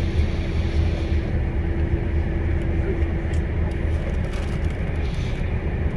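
Tour coach driving, heard from inside: a steady low engine drone with road noise. A faint steady whine runs over it and fades about three seconds in.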